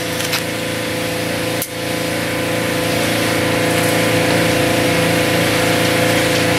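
A machine's motor running steadily nearby, a constant hum of unchanging pitch, with a single sharp click about a second and a half in.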